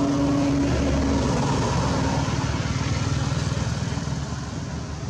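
Motor vehicle engine running close by: a steady hum over a low rumble, the hum sinking slightly in pitch in the first couple of seconds.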